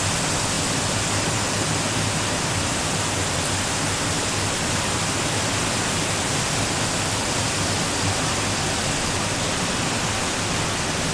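Water rushing steadily through a salmon spawning channel: a loud, even hiss with no break.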